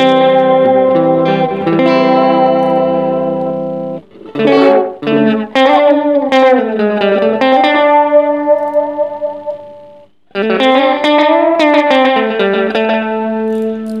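Electric guitar played through a TC Electronic Plethora X5 multi-effects pedalboard with the Vintage Echo delay and Shaker Vibrato effects engaged. A sustained overdriven chord rings for about four seconds, followed by picked single notes with string bends and a brief pause near the middle.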